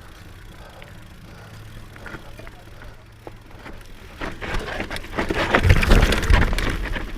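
Off-road enduro motorcycle engine ticking over quietly, then about four seconds in a loud, rough surge of engine and tyre noise as the bike accelerates away over the trail.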